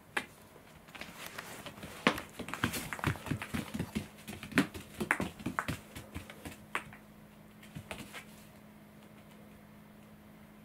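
A cat's paws scrabbling and thumping on a foam floor mat as it spins chasing its own tail: a quick, uneven run of light taps and thumps from about a second in, dying out after about eight seconds.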